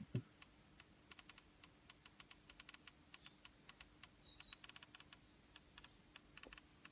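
Near silence with faint, irregular small clicks and a faint steady hum, and a few faint high chirps about four to five seconds in.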